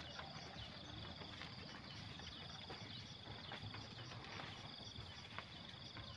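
Faint outdoor ambience with an insect trilling in repeated bouts of about a second, a high pulsed buzz, over a faint low hum and a few soft clicks.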